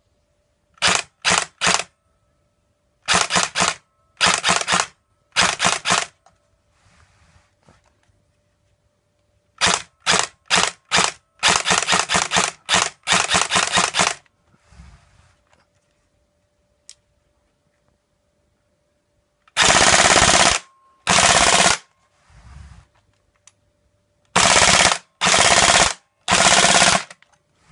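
G&P M16A1 airsoft electric gun with a Mugen 2 recoil unit firing full-auto. It fires short bursts of a few rapid shots, then longer bursts of about a second and a half each from about 20 seconds in, with pauses between them.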